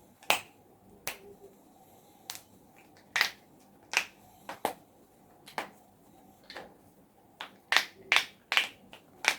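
A person's joints cracking: a series of about fourteen sharp, separate pops at uneven intervals, coming quicker near the end.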